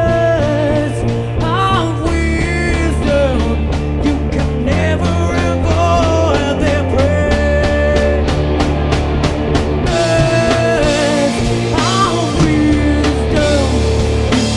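Live rock band playing: a lead line with bending notes over held bass notes and a steady drum beat.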